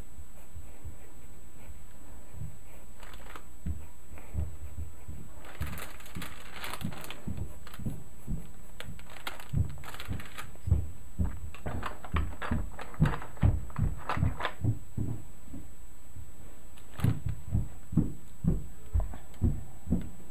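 Graphite pencil strokes on drawing paper, picked up as a series of soft low taps, coming about two a second near the end. A sheet of paper rustles briefly about six seconds in, over a steady low hum.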